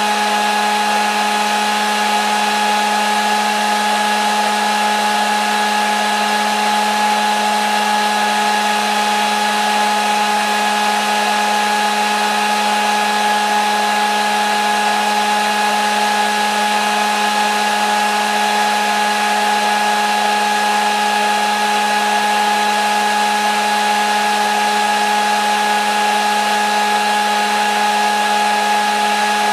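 Hair dryer running continuously, a steady motor hum with a constant whine over the rush of blown air.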